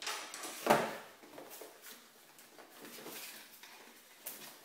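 Cardboard memory-kit retail box being handled and opened on a stone counter: one sharp knock under a second in, the loudest sound, then soft sliding and rubbing of cardboard with small clicks, and a short click near the end.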